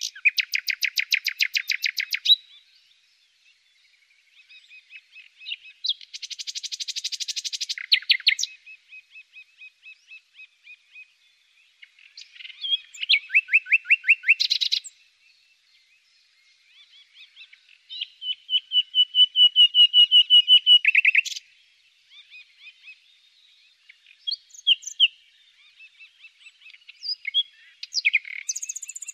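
Songbirds singing: fast trilled phrases of about two seconds each, high-pitched, coming one after another with short pauses between.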